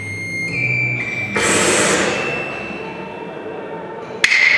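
Live electronic music: sustained high tones that step up in pitch about half a second in, then a loud hiss-like swell that fades away. Near the end comes a single sharp crack of hyoshigi, Japanese wooden clappers, with a ringing decay.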